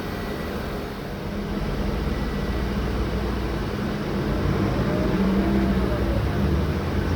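Mercedes-Benz O-500M city bus's rear-mounted engine running under way, getting louder about a second and a half in and again after about four and a half seconds, with a faint whine rising and falling near the end. It has the different growl ('ronco diferente') that the uploader flags as a strange noise.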